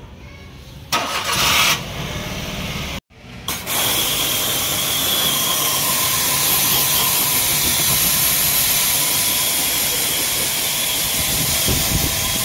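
Pressure washer running: the steady hiss of the water jet spraying against a car's door panels and windows over the steady hum of the pump. After a brief louder rush about a second in and a sudden break near three seconds, the spray comes in at full strength and holds steady.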